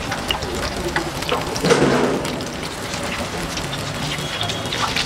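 Battered cauliflower pieces deep-frying in a large steel pot of hot oil: a steady crackling sizzle, briefly louder about two seconds in.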